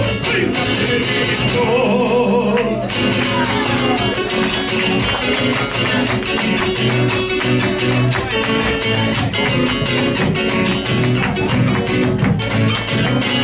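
Argentine folk music: acoustic guitars strumming a driving, even rhythm in an instrumental passage between sung verses.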